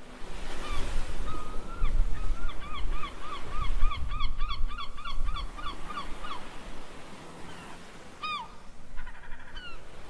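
Surf breaking on a rocky reef, a steady low rushing rumble. Over it a bird calls in a quick run of repeated chirps, about three a second, from about a second in for some five seconds, with a few more calls near the end.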